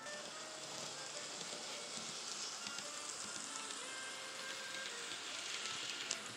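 N scale model Amtrak locomotive running on its track close by: a steady hissing rattle of small wheels and motor, strongest in the middle and latter part, with a single click near the end. Faint background music underneath.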